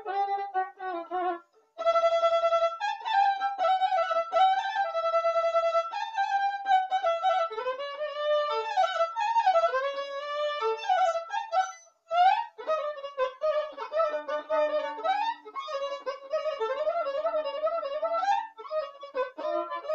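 Violin playing a fast Serbian kolo dance melody, full of quick runs and ornaments, with two brief breaks: about a second and a half in and about twelve seconds in.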